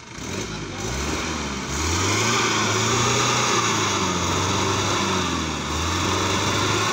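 Off-road buggy's engine revving hard while driving through river water, its pitch rising and falling in several surges.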